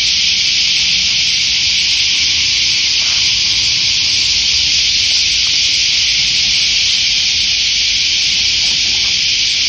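A loud, steady high-pitched hiss, with no other sound standing out.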